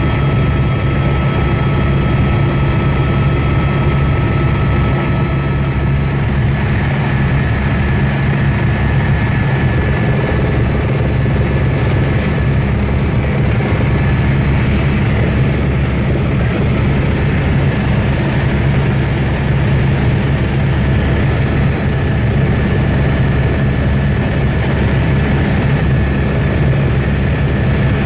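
Helicopter in flight: its engine and rotor make a loud, steady drone with a low hum and an even whine over it.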